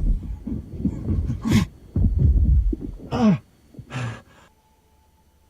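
Film soundtrack: deep rumbling, with short pitched tones that bend and glide, one falling about three seconds in. It dies away to near quiet with a faint steady tone after about four and a half seconds.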